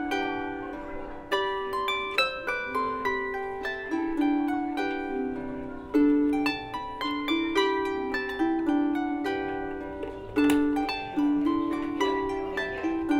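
Background music of a solo harp: a flowing stream of plucked notes, each ringing and fading as the next is struck.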